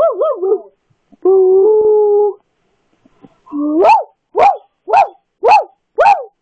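Dog howling and yowling: a held note about a second in, then a rising call and a run of five short arched yowls about half a second apart.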